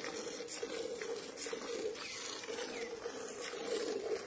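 A goat being milked by hand: quick squirts of milk hiss into a steel bucket that already holds milk, about two a second. A steady low hum runs underneath.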